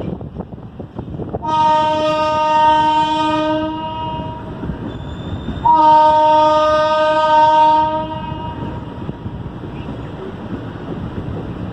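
Train horn sounding two long blasts of about two seconds each, a couple of seconds apart, over the steady running noise and wind of a moving train heard from aboard.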